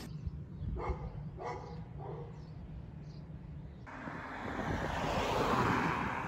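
A dog barking a few times, short separate barks. Then, after a sudden cut, a rush of noise that swells and eases off slightly.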